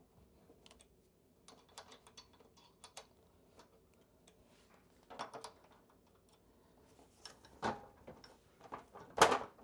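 Small metallic clicks and ticks, spaced irregularly, from a hex key working the bolts on an exercise bike's crank arm. A few louder knocks follow, and the loudest clatter comes near the end as the crank arm and pedal are worked loose.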